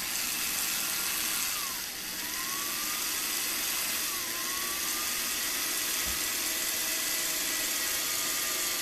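Corded electric drill running with a 1/16-inch bit, boring a small hole through a thin tube. Its motor pitch dips sharply and climbs back twice, about two and about four seconds in.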